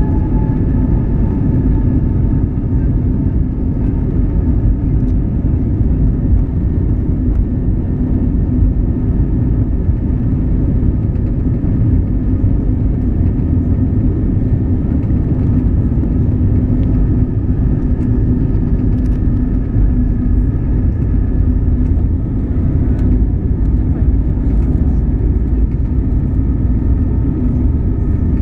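Airbus A320neo jet engines and airflow heard from inside the cabin: a loud, steady rumble with a constant whine at a few pitches held level.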